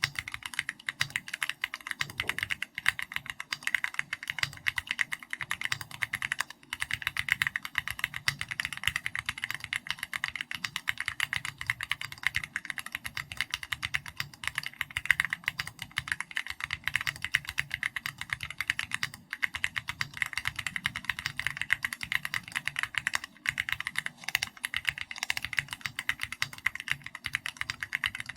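Fast, continuous typing on a custom mechanical keyboard with an SPM AL66B housing, Keychron Red linear switches and XVX comic-style keycaps. The keystrokes come in a rapid, steady stream, with brief breaks about six and twenty-three seconds in.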